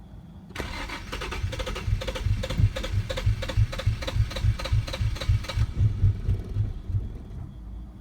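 2007 Infiniti G35's 3.5-litre V6 being cranked by its starter motor on a cold start, pulsing about three times a second for about five seconds without catching, then stopping. It is the hard cold start that happens only when the engine is cold; once warm, the car starts normally at the first try.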